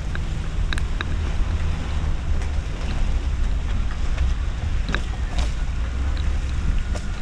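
Wind buffeting the microphone of a camera on a moving car's roof, a steady low rumble, over the hiss of tyres on wet pavement. Scattered light ticks sound through it.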